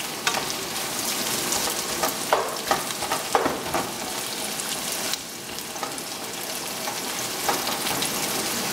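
Celery and sliced onion sizzling in oil in a frying pan while they soften, with a wooden spatula stirring and scraping the pan in a few short strokes.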